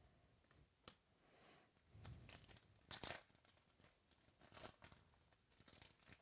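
Packs of trading cards being torn open and their wrappers crinkled, in several short bursts, the loudest about three seconds in.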